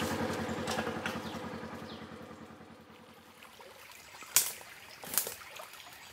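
A vehicle engine running with a steady low pulse, fading away over the first few seconds. Then two sharp snaps less than a second apart, about four and five seconds in, as sticks in a brush pile break underfoot.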